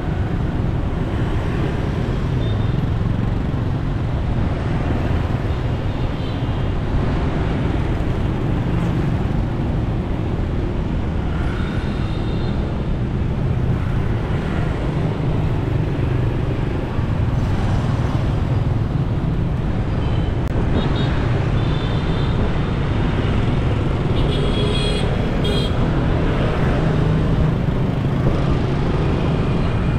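Steady road and traffic noise of a car driving through city streets: an even low rumble that does not let up, with a few brief higher-pitched sounds mixed in, most marked near the end.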